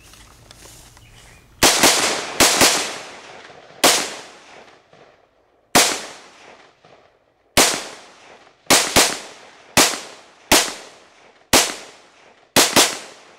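AR-15 rifle with a gas-piston upper, chambered in .223/5.56, fired semi-automatically: about fourteen sharp shots at an uneven pace, some in quick doubles, each with a short ringing decay. The first shot comes about a second and a half in.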